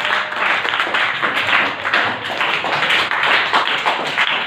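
A group of people applauding: many overlapping hand claps, dense and continuous.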